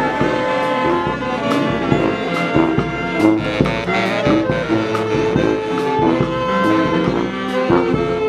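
A brass street band playing, with saxophone carrying the tune over other brass and drum hits about once a second.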